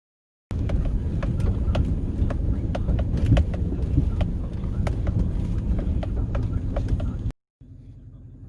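Heavy farm machinery running in the cornfield, a steady low engine rumble heard from inside the cab, with scattered sharp clicks. It cuts in sharply about half a second in, drops out briefly near the end, then comes back quieter.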